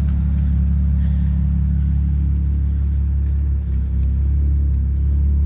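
Audi A6 engine idling steadily through an exhaust fitted with electric cutouts: a deep, even rumble with a brief dip about three and a half seconds in.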